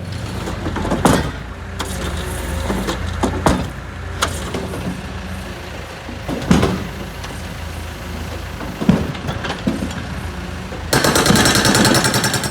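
Heavy paving equipment working: a diesel engine runs steadily under several sudden hisses and clanks, then a loud rapid rattle starts near the end.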